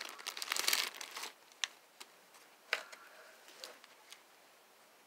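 Plastic packaging crinkling and rustling as it is handled for about a second, then a few separate light clicks and taps.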